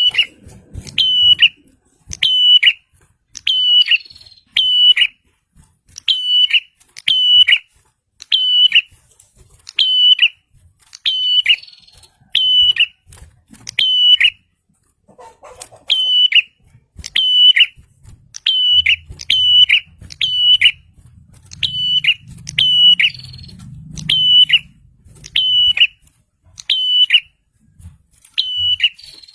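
Prinia calling: a loud, sharp chirp repeated about once a second, each note at the same high pitch ending in a quick downward flick.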